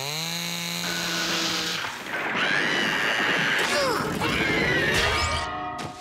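Cartoon score and slapstick sound effects: a stacked note slides up and holds for nearly two seconds, then a long noisy, crash-like stretch with sliding tones runs until about five and a half seconds in.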